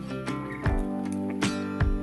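Background music: sustained pitched notes over a beat, with low drum-like hits about two-thirds of a second, one and a half seconds and nearly two seconds in.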